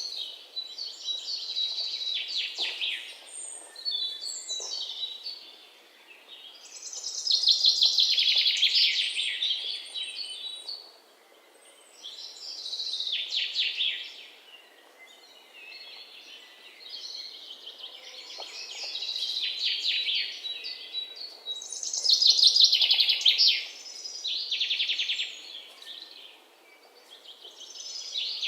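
Songbirds singing: repeated high, rapidly trilled song phrases a couple of seconds long, with short pauses between them, over a faint steady background hiss.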